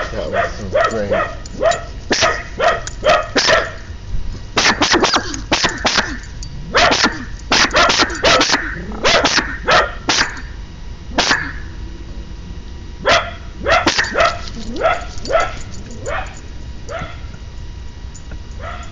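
Dog barking in quick runs of repeated barks, broken by short pauses, dying away near the end.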